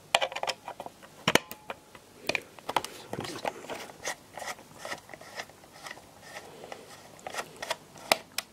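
Irregular clicks, taps and scrapes of a screwdriver working at the plastic casing of an old Labcraft-branded break-glass fire alarm call point as it is opened up, with sharper clicks just after the start, about a second in and near the end.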